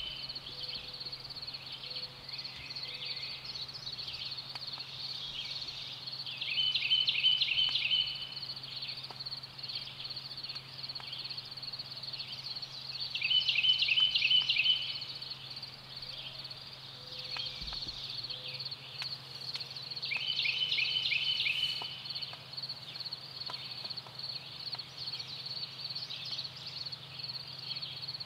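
Birdsong in the open: a songbird repeats a short, rapid phrase of quick notes about every seven seconds over a steady high, ticking trill. A faint low steady hum runs underneath.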